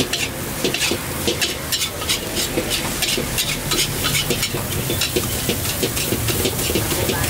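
Metal wok spatula scraping and clanking against a large steel wok as fried rice is stir-fried, with strokes coming a few times a second over a steady frying sizzle.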